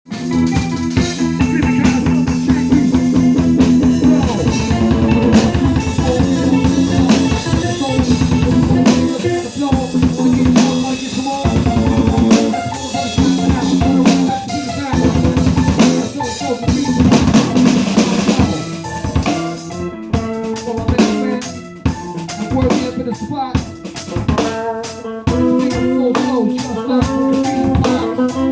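A band jamming: a drum kit with kick drum, snare and rimshots plays under held low pitched notes. About two-thirds of the way through the texture thins out to sparser, separate hits.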